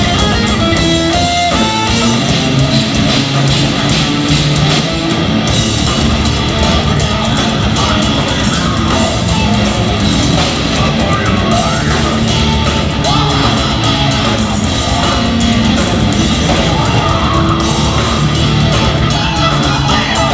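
Progressive metal band playing live: electric guitars and drum kit, loud and continuous.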